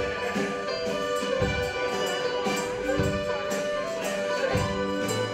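A live polka band strikes up together: flute, saxophone, tuba, banjo and drums. A heavy low beat lands about every second and a half.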